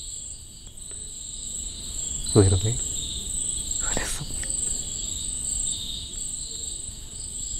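Crickets chirring steadily in a high, even chorus, with one short spoken word about two and a half seconds in.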